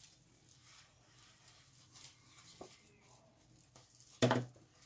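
Faint rustling and flexing of a sheet of heavy, wet mixed-media paper as it is held up and tilted, with one short, louder rush of noise about four seconds in.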